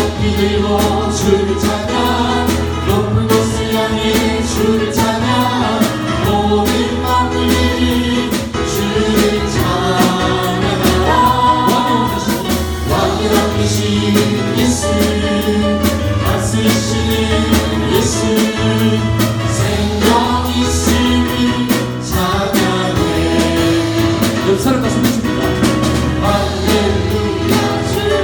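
Korean praise song sung by a worship team and congregation together, with band accompaniment, a steady bass and a regular beat.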